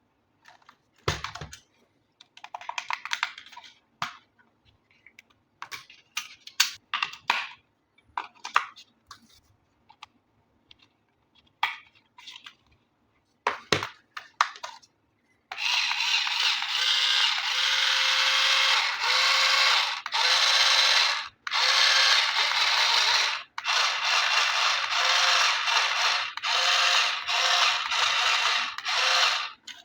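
Packaging of a toy RC vehicle being handled: scattered clicks and short rustles, then about halfway through a loud, continuous rustling of packaging that breaks off briefly every second or two.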